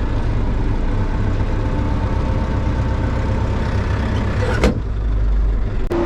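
Engine of a heavy farm vehicle running steadily with a low rumble, with a single sharp click about four and a half seconds in.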